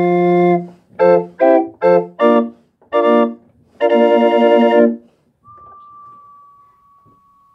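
Small busker organ with wooden pipes playing a run of short chords, then a held final chord that stops about five seconds in. A faint thin steady tone lingers to the end.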